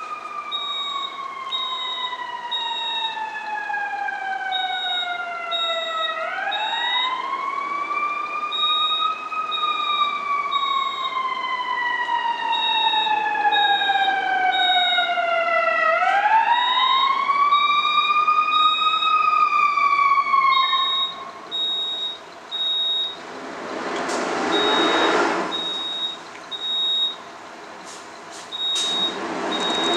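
Building fire alarm sounding a high beep in repeating groups of three (the temporal-three evacuation pattern), over an emergency-vehicle siren in slow wail. The siren glides down slowly and swoops back up, then stops about two-thirds of the way through. Near the end there are two loud bursts of rushing noise.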